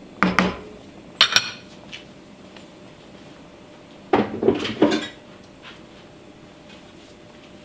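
A wooden spoon knocking on the rim of an enamelled cast-iron pot, then clacked down onto a spoon rest. About four seconds in comes a quick run of kitchenware clatter.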